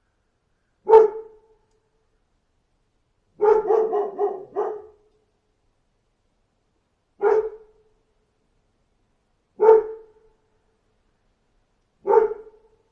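A dog barking: single barks spaced a few seconds apart, with a quick run of about five barks a few seconds in.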